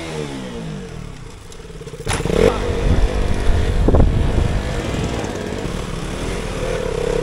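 Motorcycle engine revving: it comes in sharply about two seconds in, is loudest over the next two seconds with a quick rise in pitch, then runs on steadily.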